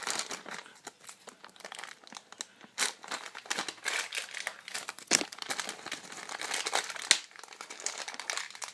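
Plastic bag of miniature models being crinkled and pulled open by hand: irregular crackling with a few sharper snaps spread through.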